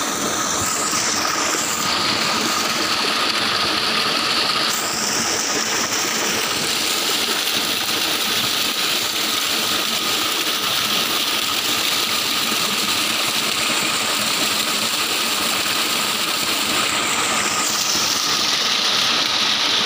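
Heavy stream of water gushing steadily from a 15 HP pump's discharge pipe into a tank, a constant rush with a thin steady whine underneath.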